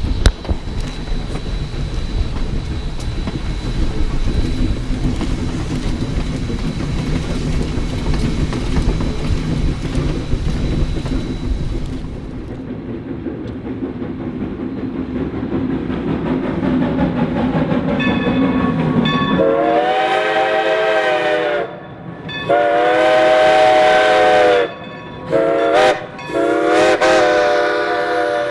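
Baldwin 2-8-0 steam locomotive No. 40 sounds its whistle, several tones blown together, in two long blasts, a short one and a long one: the grade-crossing signal. It sounds over the rumble of the train crossing a bridge. Before that, from about halfway back, there is heavy wind and running noise while riding alongside the train.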